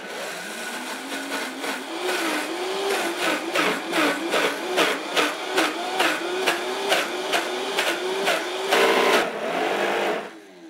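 Vitamix blender starting at low and speeding up over the first couple of seconds, then running on a thick dip of soaked sunflower seeds and cilantro with the tamper pushed through the lid. Its motor pitch wavers under the load, with a quick regular knocking about three times a second. The motor is switched off about ten seconds in and its pitch falls as it winds down.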